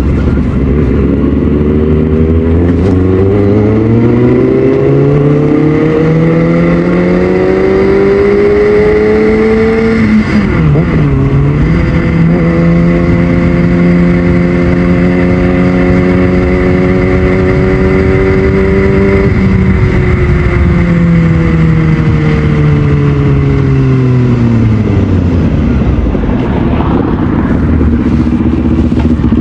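Motorcycle engine pulling up through the revs for about ten seconds, with a brief dip in revs, then holding a steady pitch. It winds down over several seconds as the bike slows.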